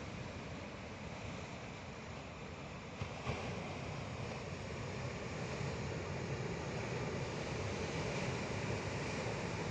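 Sea surf washing in steadily, growing a little louder after about three seconds.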